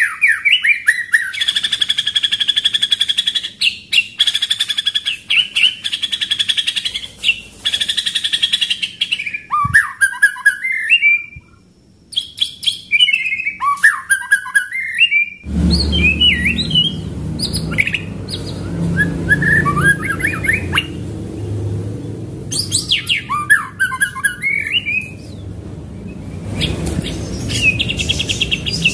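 White-rumped shama (murai batu) singing in fast, rolling runs of rapidly repeated notes, broken by short varied phrases. The song drops out for about a second near the middle. In the second half a steady low background noise runs under it.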